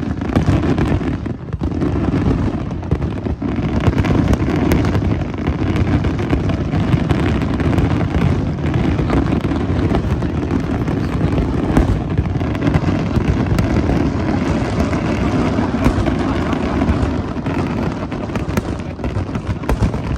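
A fireworks display heard from a distance: a dense, unbroken run of booms and crackling bursts over a heavy rumble.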